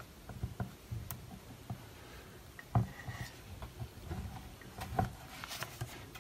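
Quiet handling noises: a few light clicks and taps from a hot glue gun and 3D-printed plastic parts being worked along a glued seam, with a slightly louder knock about three seconds in.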